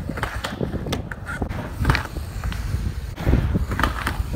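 Skateboard rolling across a mini ramp with a low wheel rumble and several sharp clacks of board and trucks. Near the end the back truck grinds along the metal coping in a frontside 5-0.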